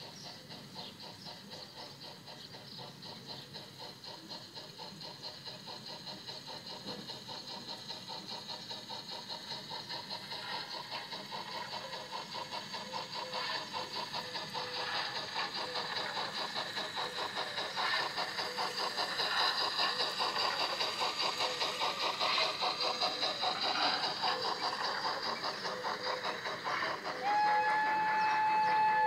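Märklin gauge 1 BR 89 model steam locomotive's sound unit chuffing in an even rhythm, growing louder as the train approaches on the garden track. Near the end it gives a steady whistle blast.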